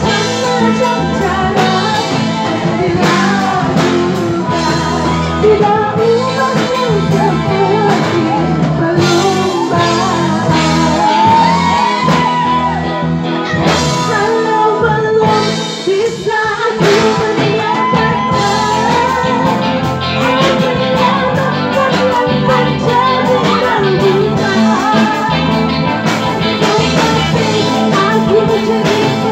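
Live band music with a singer and electric guitar, played at a steady loud level.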